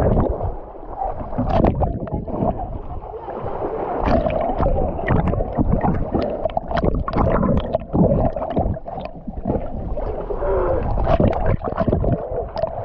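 Wind and water noise aboard a small fishing boat, with many irregular knocks and thumps and a few voices.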